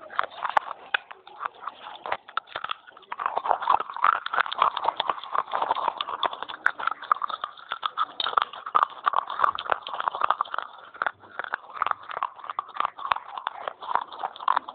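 Close-up crunching of a baked terracotta clay pot being bitten and chewed: a fast, dense run of crunches, a little sparser for the first few seconds.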